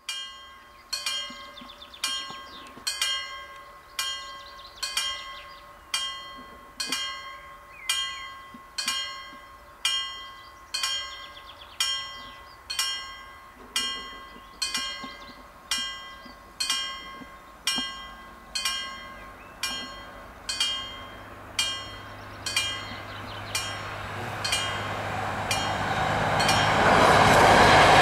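Level-crossing warning bell striking steadily about once a second, each stroke ringing on. About two-thirds of the way in, a diesel railbus (Danish Y-train set Ym + Ys) approaches with a low engine drone and rising running noise. The train grows loud enough near the end to drown out the bell.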